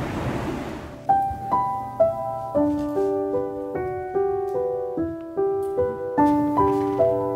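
Background piano music: a slow, gentle melody of single struck notes over held chords, about two notes a second, after a second of rushing noise at the start.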